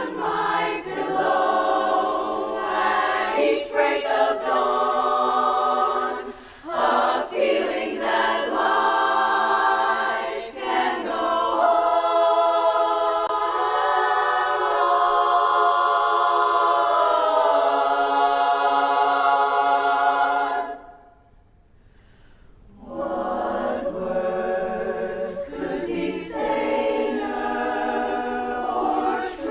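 Women's barbershop chorus singing a cappella in close four-part harmony. A long chord is held with one part sliding in pitch, then the chorus stops for about two seconds about two-thirds of the way through before the singing resumes.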